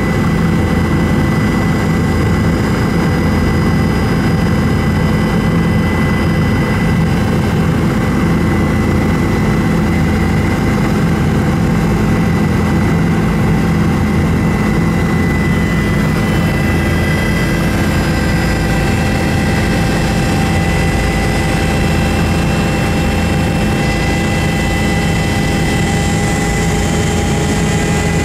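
Helicopter in flight heard from inside the cabin: a loud, steady drone of rotor and turbine engine with a steady high whine over it.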